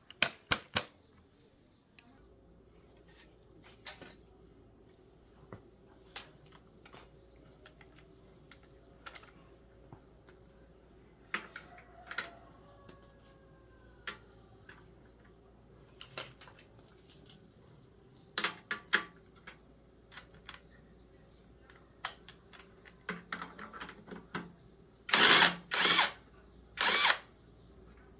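Metal tools clicking and knocking during hands-on work on a GX200 small engine, with three short, loud bursts of noise near the end.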